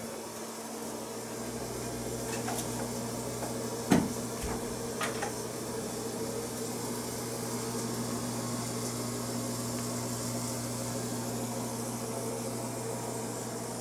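Steady ventilation hum in a small tiled bathroom, with a sharp knock about four seconds in and a couple of fainter clicks near it.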